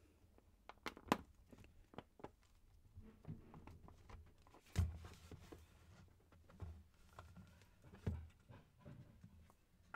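Halves of a 3D-printed PLA plus injection mold being worked apart by hand: faint rubbing and scraping of plastic with scattered clicks and knocks, the loudest about five seconds in and another near eight seconds.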